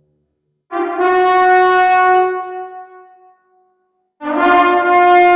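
War horn blown in two long, steady blasts on one note: the first starts just under a second in and fades out over about two and a half seconds, and the second begins near the end and is still sounding.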